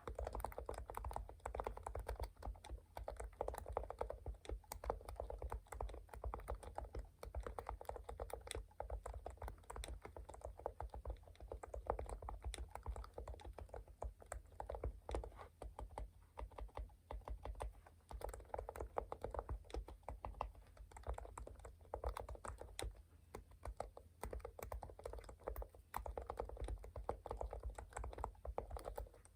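Typing on a computer keyboard: a steady run of keystrokes in short bursts with brief pauses between them.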